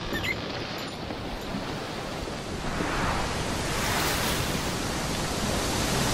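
Rushing, surf-like noise that swells louder about three seconds in, with a high hiss peaking around four seconds.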